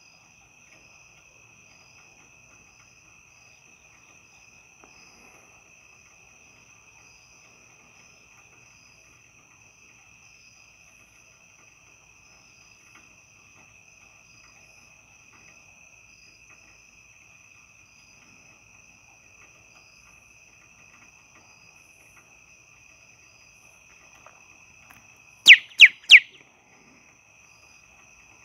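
A faint, steady chorus of crickets trilling. About 25 seconds in come three loud, sharp clicks in quick succession, within about a second.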